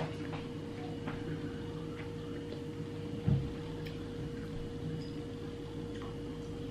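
Steady low room hum with a faint constant tone, under scattered soft clicks and ticks from fingers on a plate of food and on a phone screen, and one dull low thump about three seconds in.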